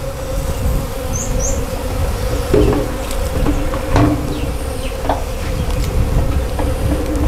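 Swarm of honey bees buzzing in a steady, even hum around an opened hive and a bucket of freshly harvested comb, with a few soft knocks near the middle.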